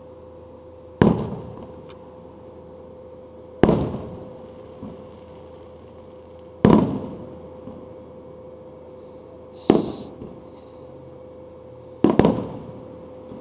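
Aerial fireworks shells going off one at a time: five sharp booms about every three seconds, each trailing off in a rolling echo.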